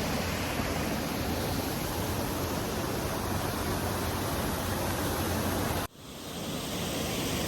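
Steady rushing of a creek's water cascading through a slot canyon. About six seconds in it cuts out abruptly and fades back in.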